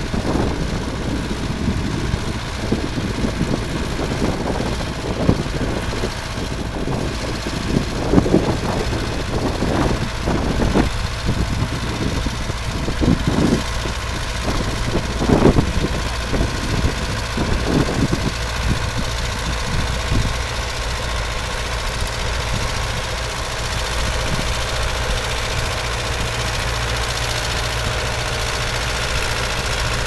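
International Harvester tractor's diesel engine running steadily under load as it pulls a plough through stubble.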